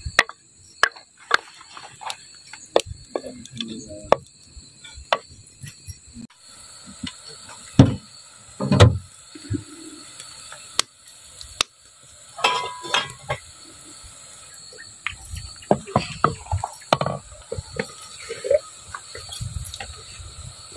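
A wooden spoon knocking and scraping against earthenware bowls and a clay cooking pot, in sharp, irregular clicks and knocks. Crickets chirp steadily behind.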